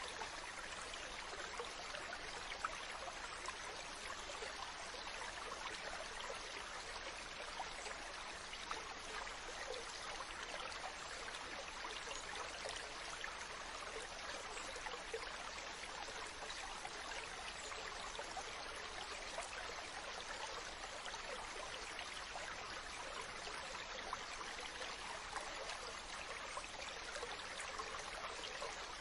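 A mountain stream's water running and splashing steadily over rocks, a continuous rushing with small bright splashes.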